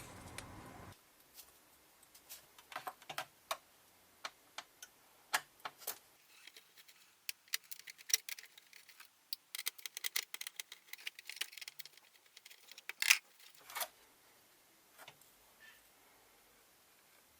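Irregular sharp clicks and light clatter of hands taking apart a Yamaha PSR-172 electronic keyboard. The clicks are thickest in the middle, with the loudest about 13 seconds in, and background music stops abruptly about a second in.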